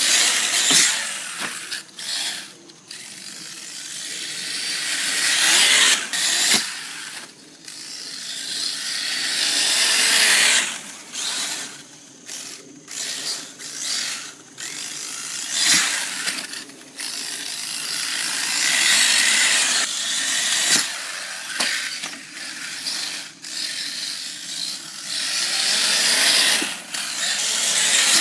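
A high-speed RC car driving hard. Its motor and drivetrain whine, swelling and fading again and again as it speeds up, slows and passes, with a few sharp knocks along the way.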